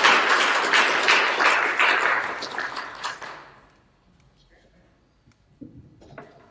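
Audience applauding, dying away about three seconds in, followed by a few faint thumps.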